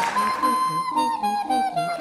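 Background music: a single sustained melody line, flute-like in tone, moving between held notes over a steady, evenly pulsing bass beat.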